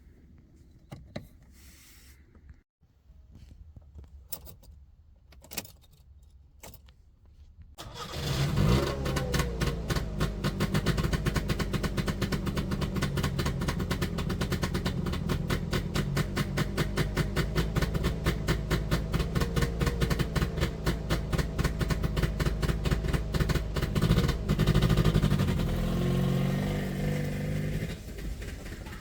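A few faint clicks, then about eight seconds in the Trabant 601's air-cooled two-stroke twin, fitted with a Mikuni TMX27 carburettor, starts and settles into a steady, rapid-firing idle. It swells briefly louder near the end.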